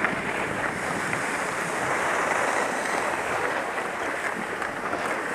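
Skis sliding and scraping over packed snow: a steady, even hiss.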